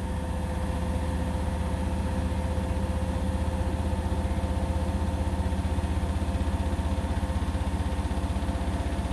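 Indesit BWE101683 front-loading washing machine in its final spin: the drum rumbles with a fast, even pulse and the motor whines steadily, getting a little louder over the first few seconds as the spin speeds up. The pulsing comes from a slightly unbalanced load.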